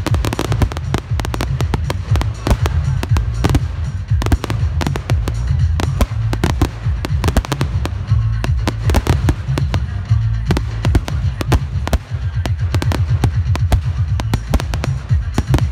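Fireworks display: a rapid, continuous stream of sharp bangs and crackles from aerial shells and comets bursting, over music.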